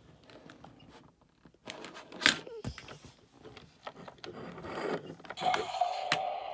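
Plastic toys knocking and clicking on a tabletop as puzzle cubes and a toy car are handled, with one sharp knock about two seconds in. About five and a half seconds in, a steady mid-pitched tone with a hiss starts.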